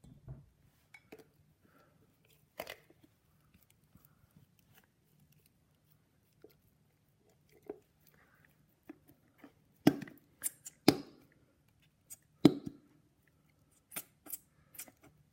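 Slime being mixed after glitter glue is added: scattered quiet sticky clicks and squelches, with a handful of sharper knocks from about ten seconds in.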